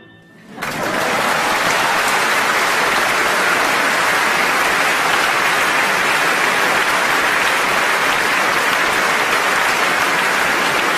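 A last piano note dying away, then a large concert-hall audience breaking into loud, steady applause about half a second in, at the end of the piece.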